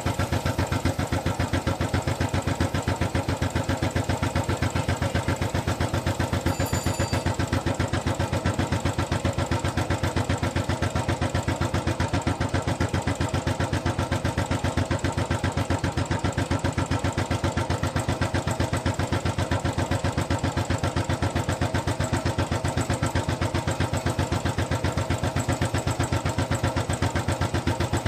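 Royal Enfield Bullet single-cylinder motorcycle engine idling steadily, its exhaust giving an even, rapid train of thumps.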